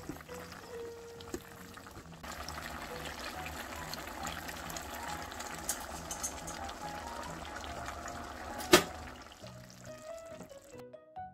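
Soy-braised chicken with glass noodles simmering in a pot: a steady bubbling hiss that starts about two seconds in and cuts off near the end, with one sharp click shortly before it stops. Light background music plays throughout.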